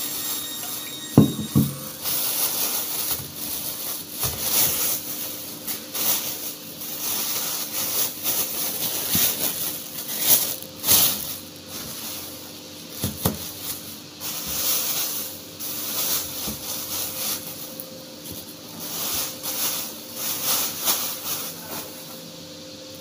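Thin plastic shopping bags rustling and crinkling as snacks are unwrapped and unpacked by hand, with a couple of short knocks along the way.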